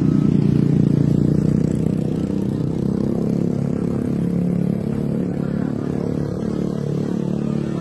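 Motorcycle and car engines running on the road, a steady, dense traffic noise.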